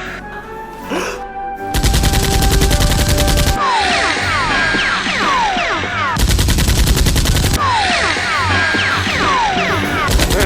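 Two bursts of rapid automatic gunfire, each about a second and a half long, each followed by a run of short falling whines, with a brief third burst near the end; background music runs underneath.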